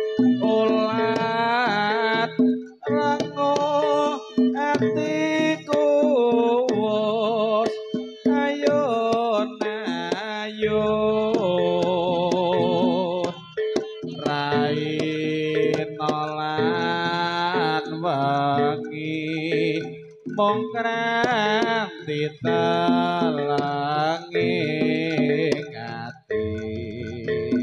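Live Javanese jaranan ensemble music: a wavering, pitch-bending melody line over a steady held tone, with short breaks between phrases.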